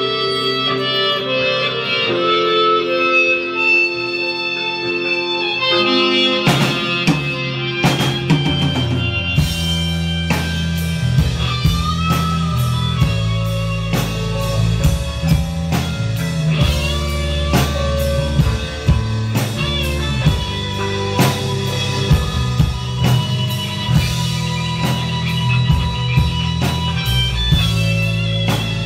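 A live rock band playing: an electric guitar carries a sustained melodic line alone, then the drum kit and a heavy low bass line come in about six seconds in and the full band plays on with a steady beat.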